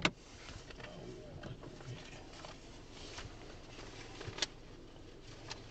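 Quiet small room with faint handling noises: soft rustles and scattered light clicks, one sharper click about four and a half seconds in.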